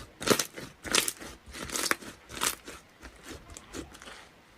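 A series of short crunches, about one every 0.7 seconds, fading out over the last second or so.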